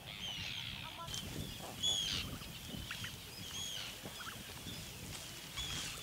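Birds calling in an eider colony: short, high calls that rise and fall in pitch, repeated every second or so, the loudest about two seconds in, over a low background rumble.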